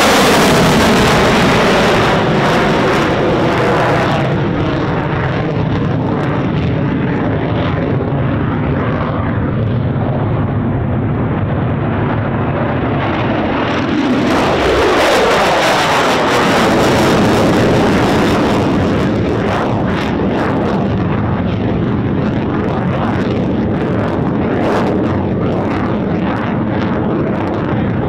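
Loud, continuous jet noise from an F-35A's F135 turbofan as the fighter pulls up into a steep quick climb. About halfway through the sound swells and its pitch sweeps down and back up as the jet passes overhead, then it stays loud as the jet climbs away.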